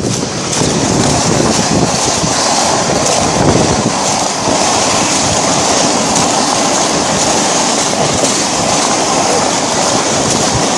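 Steady, loud rush of wind buffeting the microphone, mixed with water noise, while travelling on the river by boat.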